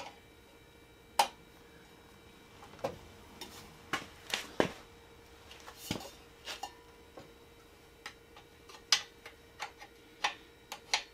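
About a dozen light clicks and knocks at uneven spacing from hand work on a Yamaha V-Star 1300's front forks and their pinch bolts.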